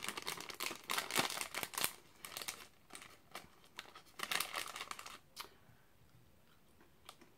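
Plastic candy wrapper crinkling and tearing as it is opened, in several bursts of crackle that die away for the last couple of seconds.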